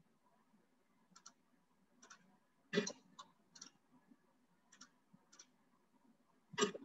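Scattered clicks of a computer mouse and keyboard: single soft clicks every half second or so, one louder click about three seconds in, and a louder quick cluster near the end as a value is typed in.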